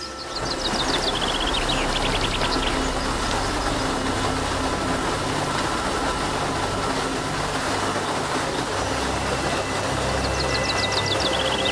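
Water pouring down a rock face in a steady rush of noise, with a bird's quick series of descending chirps about half a second in and again near the end.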